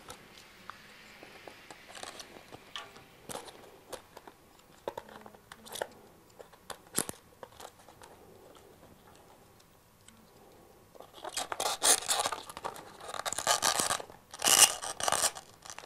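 Clear plastic clips being pushed and slid onto the edges of a foam-board square: scattered light clicks and taps, then a few seconds of crunchy scraping near the end as a clip grinds along the board's edge.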